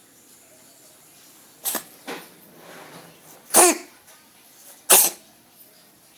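Cat coughing in a run of four short, sharp coughs, the first about a second and a half in and the loudest two near the middle, a little over a second apart.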